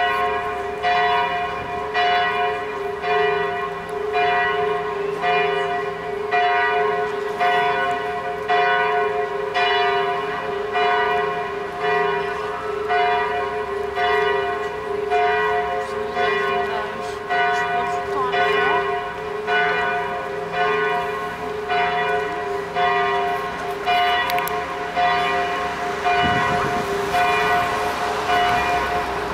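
Notre-Dame de Paris cathedral bells pealing: several church bells struck about once a second, their ringing blending into a steady sustained hum.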